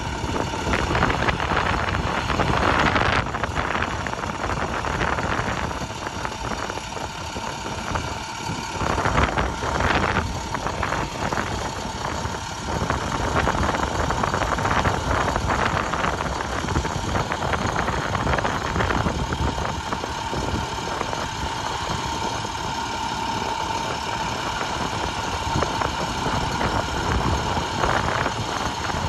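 Truck engine idling, with a steady whine over it.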